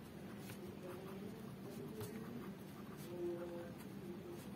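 Pen writing on paper: faint scratches and taps of short strokes, over a low steady hum.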